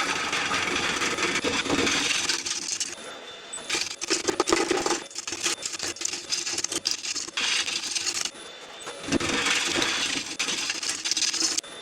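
A tool working the face of a yew platter spinning on a wood lathe, in repeated passes with brief pauses between them, and a dense crackling stretch in the middle.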